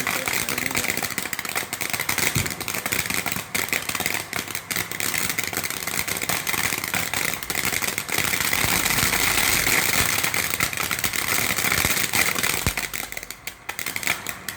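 Ground fountain firework spraying sparks: a continuous hiss with dense crackling, a little louder about two-thirds of the way through and easing off near the end.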